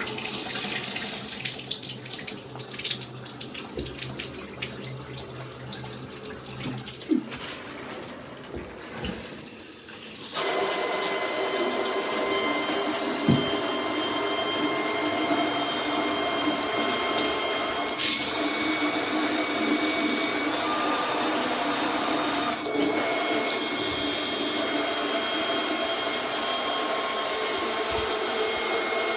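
Handheld shower head spraying water. About ten seconds in, it suddenly gets louder and steady whining tones join the spray.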